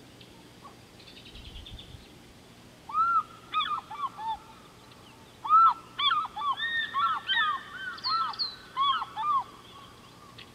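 Several birds calling at once in a run of short, arched, repeated calls that starts about three seconds in and stops near the end, with a faint high chatter just before it.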